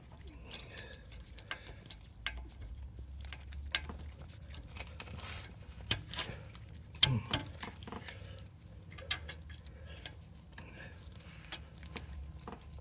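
Light metallic clicks and taps as a brake pad retaining pin is worked into the caliper past the pad retention spring, with a couple of sharper knocks about six and seven seconds in.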